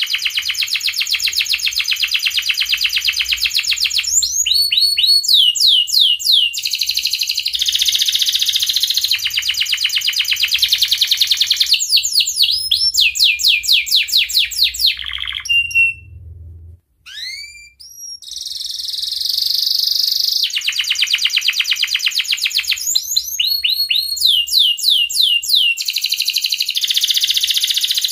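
Domestic canary singing: long, very rapid trills alternating with runs of swooping notes, with a brief break about halfway through.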